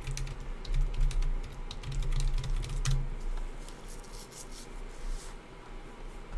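Typing on a computer keyboard: quick runs of key clicks, dense for the first three seconds and then sparser. The typing is a lookup to check which team the autographed piece belongs to.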